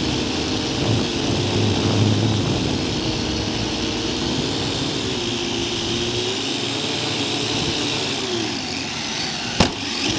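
Multirotor drone's motors and propellers whirring close to its onboard camera, the pitch dropping as it slows and descends. About nine and a half seconds in, a single sharp knock as it touches down on grass.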